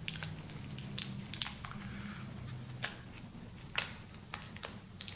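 Irregular sharp clicks and light taps of small laptop hardware being handled: a 2.5-inch SSD, its connector cable and mounting screws, about eight in all, the loudest in the first second and a half.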